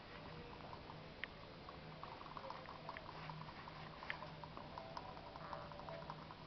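Faint patter and small clicks from Silver Fox rabbit kits moving about a wire cage, with two sharper clicks about a second in and about four seconds in.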